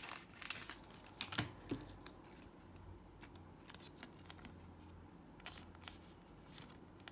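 Soft plastic rustling and small clicks of a foil Panini Adrenalyn XL trading card being handled and slid into a clear plastic card sleeve, with a few sharper ticks about a second in and again about five and a half seconds in.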